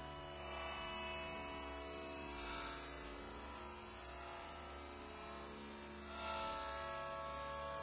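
Steady electrical hum, with faint background music whose sustained chords change a few times.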